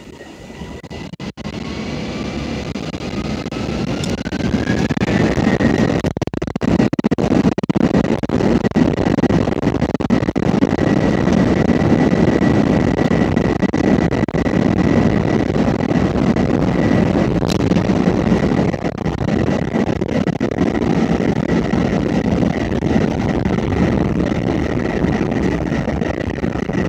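Airliner's jet engines spooling up to takeoff power, heard from inside the cabin during the takeoff roll. A rising whine over the first five seconds or so levels off into a steady high tone over a loud, steady roar.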